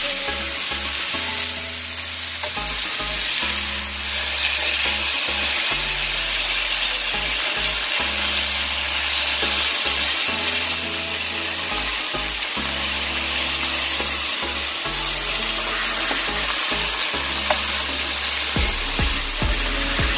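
Seasoned chicken breasts searing on a flat griddle pan, a steady dense sizzle of hot fat. A bass-heavy music track plays underneath.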